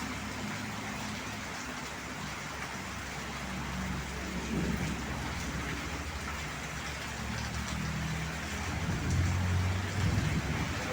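Heavy rain falling steadily, with a low engine hum underneath that swells about midway and again near the end.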